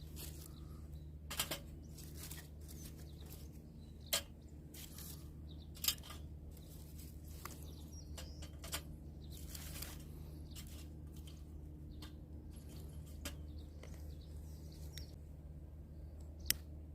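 Wood cracking and snapping in irregular sharp snaps, a dozen or so spread across the stretch, over a steady low hum.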